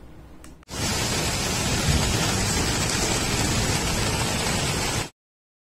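Steady heavy rain falling on trees, a dense even hiss that starts abruptly about a second in and cuts off just after five seconds.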